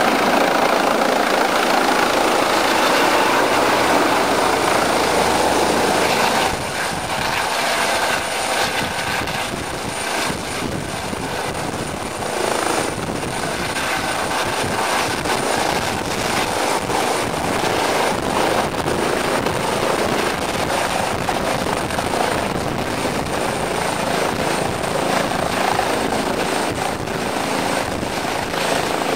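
Eurocopter EC135 twin-turbine rescue helicopter hovering low and setting down on its landing pad, its rotor noise loud and dense, easing off about six seconds in, with a steady high whine over it.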